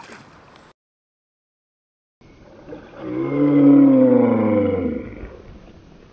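A man's long, loud yell of triumph, falling in pitch toward its end, as a big bass is swung into the boat. Before it the sound cuts out completely for about a second and a half.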